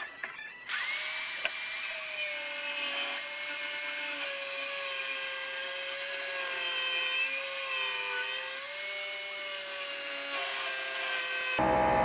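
Angle grinder with a cutting disc cutting through a metal threaded rod clamped in a vise. It starts about a second in: a steady, slightly wavering whine over a dense hiss of grinding. The sound changes abruptly near the end.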